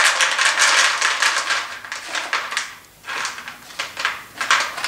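Dry horse-feed pellets pouring out of a tub and rattling into a plastic container. The rattling runs continuously at first, stops about three seconds in, then comes back in a few short spurts as more are shaken in.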